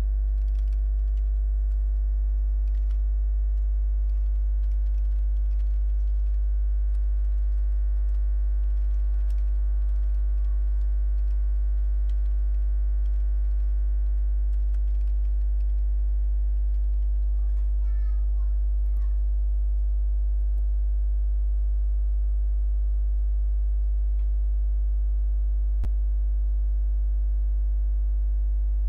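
Loud, steady electrical mains hum, strongest in the deep bass, with a buzz of many steady overtones above it. A faint click about 26 seconds in.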